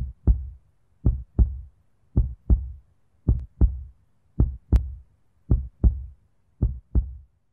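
Heartbeat sound effect: low double thumps, lub-dub, seven pairs at a steady pace of about one every 1.1 seconds.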